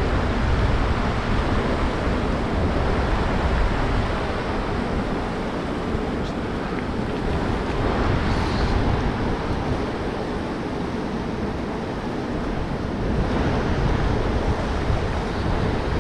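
Steady rush of river water running through a riffle, with wind buffeting the microphone as a low, uneven rumble.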